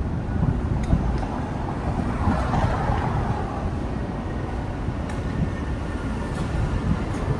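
Steady low rumble of city street traffic, with a few faint clicks.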